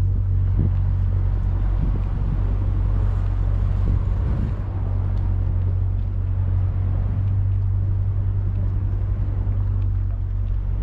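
A steady low mechanical hum that stays even throughout.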